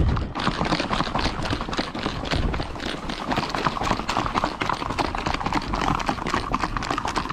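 Horses' hooves clip-clopping in a quick, dense run of hoofbeats, ridden horses walking out on a group ride.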